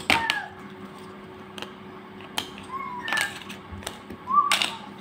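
Cardboard jigsaw puzzle pieces and boards being handled, with scattered light clicks and taps, and a few short falling vocal sounds from a child. A steady hum runs underneath.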